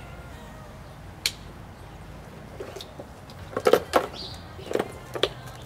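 Plastic clicks and knocks from a pond fountain pump's filter box being handled and fitted back together, with a cluster of sharper knocks a little past halfway, over a low steady background noise.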